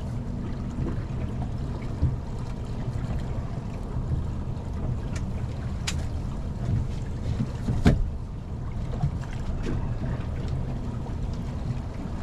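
Steady low wind and water noise around a small boat on the water, with a few light knocks; the sharpest comes about eight seconds in.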